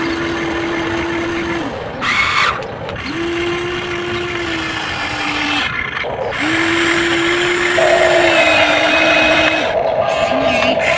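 Small electric motors of toy remote-control construction vehicles whining steadily in three stretches of a few seconds each, starting and stopping as the controls are worked. A second, higher-pitched whine joins in near the end, as the HUINA excavator's arm and bucket dig.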